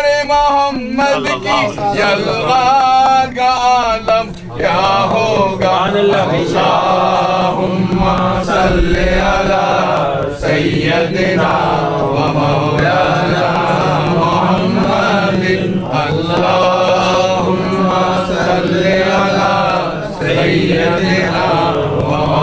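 A group of voices chanting together without pause, a Sufi devotional chant (dhikr) in Arabic.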